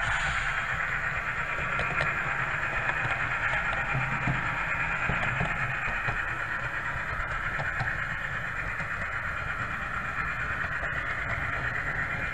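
HO-scale Life-Like Proto 2000 GP30 model locomotive running, its ESU sound decoder playing a steady diesel engine sound through the small onboard speaker, heard up close over a low rumble.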